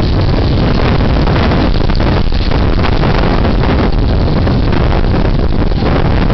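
Storm wind buffeting a security camera's outdoor microphone: loud, continuous gusting rumble with no break.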